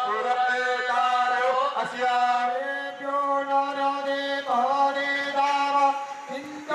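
A man chanting ritual mantras in long, drawn-out held notes, the pitch stepping up now and then and dipping briefly about four and a half seconds in.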